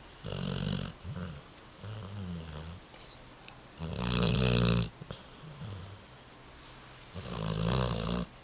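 Labrador snoring in its sleep: three loud snores about three and a half seconds apart, with softer snoring breaths between them.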